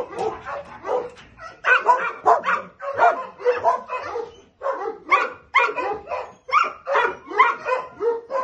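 Shelter dogs in their kennels barking over and over, a steady run of short barks about two or three a second.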